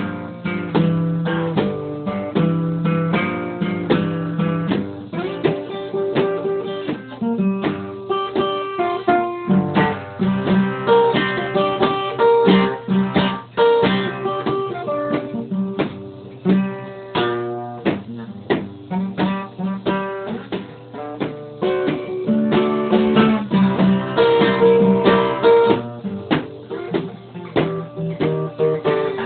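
Acoustic guitar played solo in a delta blues style, an instrumental passage of plucked notes over a repeating low bass line.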